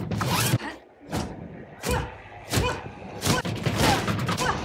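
Movie fight-scene audio: a string of about six heavy thuds and slams, a bit under a second apart.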